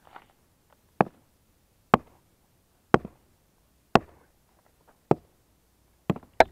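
Sledgehammer striking stone: sharp, ringing blows at about one a second, with two quick blows near the end.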